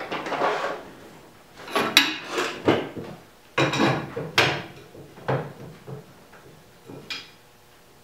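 A person climbing down into a sprint car's cockpit: irregular clunks, knocks and scrapes as body and shoes bump the metal seat and roll cage, with clothing rustling between them. The loudest knocks come in the middle, and the sounds thin out toward the end.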